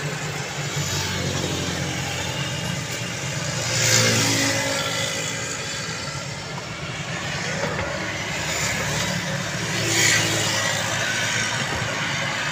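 Suzuki Khyber's small three-cylinder engine running with a steady hum, rising in two brief swells about four and ten seconds in. Its gearbox has just been packed with bananas, an old trick to deaden the noise of worn gears.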